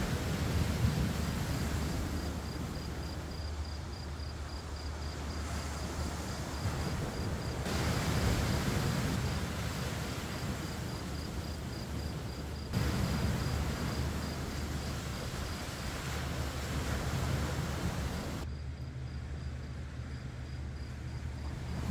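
Outdoor ambience of wind rumbling on the microphone, with a steady high-pitched cricket trill. The sound changes abruptly three times, as one shot cuts to the next.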